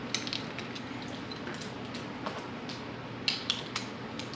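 Light metallic clicks and clinks of a hand tool and small screws being handled at a motorcycle's handlebar control housing, a few scattered ones then a quick cluster about three seconds in.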